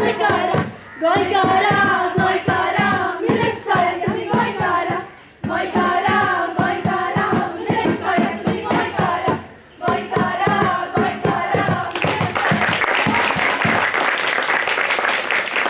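A group of performers singing a song together over a hand drum keeping a steady beat, with short breaks between lines. About twelve seconds in, the song ends and applause starts.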